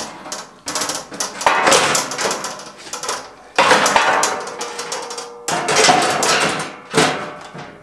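Sheet-metal box with an aluminium checker-plate top being set down and shifted on a steel frame: a run of metal clatters, knocks and scrapes, one with a short ringing note in the middle.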